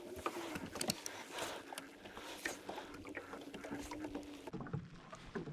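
Small handling noises in a fishing boat: scattered light clicks and taps over a soft hiss, with a faint steady hum that stops about four and a half seconds in.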